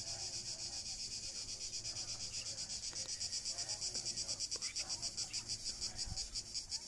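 Cicadas buzzing in the trees: a steady high, rapidly pulsing drone that grows a little louder about halfway through, with faint murmuring voices beneath.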